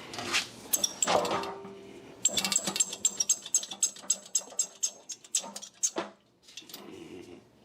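A couple of knocks, then a rapid run of metallic clicks lasting about three and a half seconds: lifting gear ratcheting as a Bridgeport mill base is let down onto wooden blocks.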